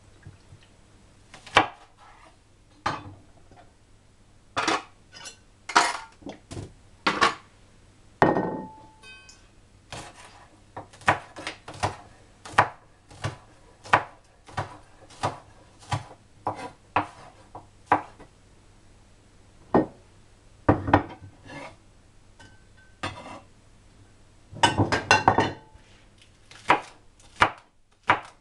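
Chef's knife chopping spring onion on a wooden cutting board: irregular sharp knocks of the blade hitting the board, roughly one a second, with a quick run of rapid cuts near the end.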